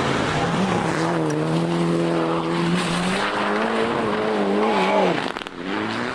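Rally car engine at high revs, holding a steady note and then dropping off about five seconds in before picking up again, over a rough hiss of tyres on the road surface.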